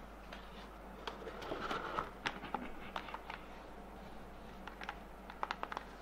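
Handling noise as a Parrot Swing minidrone is lifted out of its foam packaging and set down: scattered light clicks, taps and brief rustles, with a quick run of small clicks near the end.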